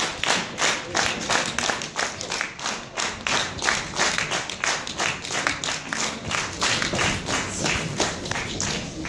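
Audience clapping together in a steady rhythm, about three claps a second, thinning out near the end.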